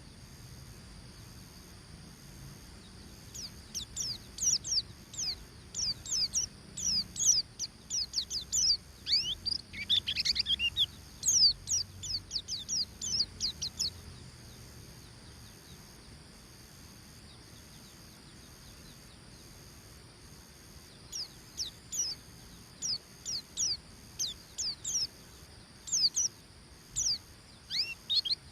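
White-eye (pleci) singing in the fast 'ngeriwik' style: long runs of rapid, sharp, high chirps that each sweep downward. The song pauses for several seconds in the middle, then starts again.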